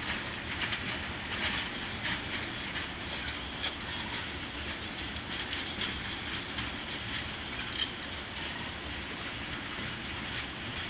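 Railroad tank cars of a freight train rolling past. It is a steady rumble of wheels on rail, with frequent irregular sharp clicks from the wheels passing over the track.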